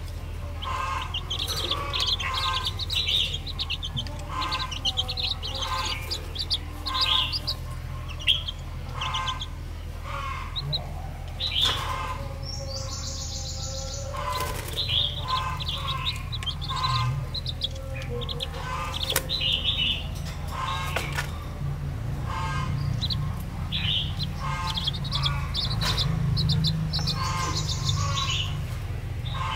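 Baby chicks peeping: many short, high chirps overlapping in quick runs.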